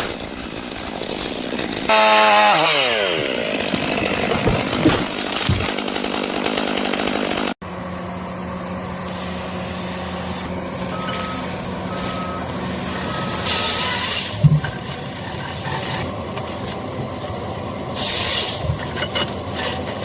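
A small engine, likely a chainsaw, running, with its pitch dropping sharply about two seconds in as it comes off throttle. After an abrupt cut, a heavy machine's engine runs steadily with a few short high beeps and occasional knocks.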